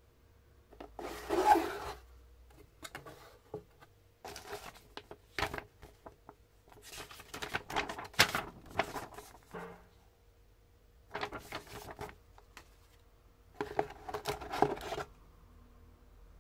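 A cardboard box and its contents being handled: rubbing, scraping and paper rustling in about five short bursts, with a few sharp taps and clicks, as the box is opened and a paper sheet is lifted out.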